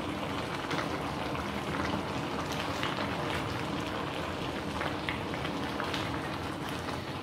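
Pot of meat and stockfish bubbling and sizzling in its own juices while it is stirred with a wooden spatula, with a steady crackling hiss and many small pops and scrapes. The meat is cooked through and ready.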